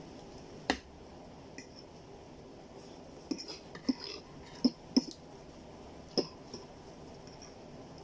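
Eating sounds while working through a plate of chow mein: a handful of short, sharp clicks and smacks, most of them bunched between about three and five seconds in, over a faint steady background.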